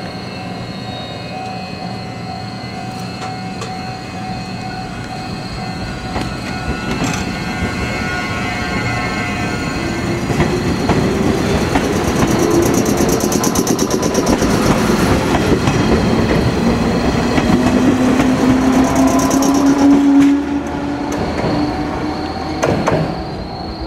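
JR West 105 series electric train of two coupled sets pulling out of a station. The motor hum rises in pitch as it gathers speed, and the wheels clack over rail joints as the cars pass close by. The sound grows louder through the middle and drops off sharply about twenty seconds in as the last car goes by.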